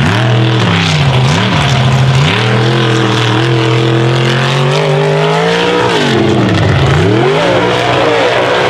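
Lifted mud truck's engine revving hard under full throttle, its pitch dipping and recovering, then climbing steadily for several seconds before falling away and rising again about seven seconds in.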